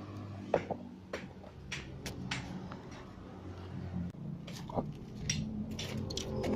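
An engine running at low revs, slowly growing louder, with scattered sharp clicks and knocks over it.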